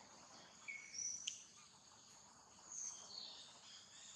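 Steady high-pitched drone of insects, with a few short high chirps over it, the loudest about a second in and again near three seconds.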